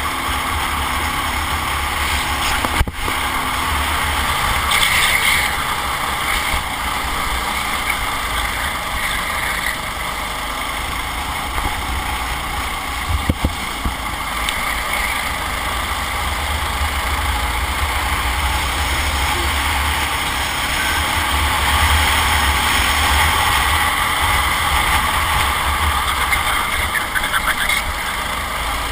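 Go-kart engine running at racing speed, heard from on board, with wind on the microphone adding a heavy low rumble.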